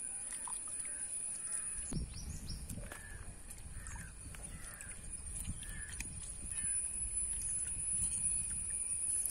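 Outdoor ambience: birds calling in short repeated calls, roughly once a second, over a steady high-pitched whine, with a low rumble joining about two seconds in.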